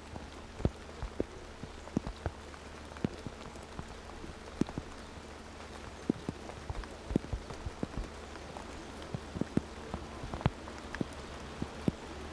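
Light rain: irregular drops tapping close by, several a second, over a low steady hum.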